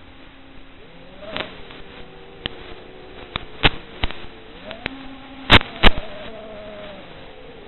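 Brushless motors and propellers of a ZMR 250 racing quadcopter buzzing, their pitch rising and falling with throttle, heard through the FPV video link's audio. Sharp crackles of radio static run throughout, the loudest two about five and a half seconds in, as the analog video signal breaks up.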